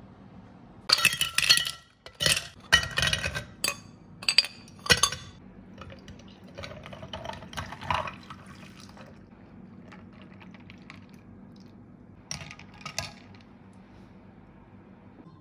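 Several sharp clinks against a glass mug, then matcha milk poured over ice, the filling sound rising in pitch as the glass fills. Near the end a metal straw clinks twice against the glass.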